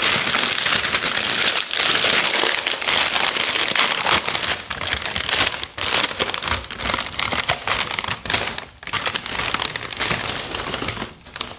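A clear plastic bag of cornflakes crinkling and rustling as it is handled and opened, the flakes shifting inside. The crinkling is dense and unbroken for about the first six seconds, then comes in shorter, broken-up stretches.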